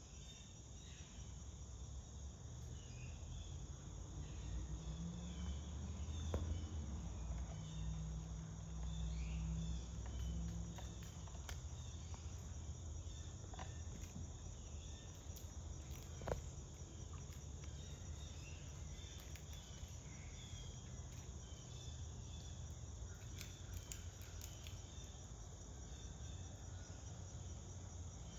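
Insects trilling steadily, a high, even, rapidly pulsing chirr. A low rumble swells for several seconds in the first half, and a few sharp clicks stand out.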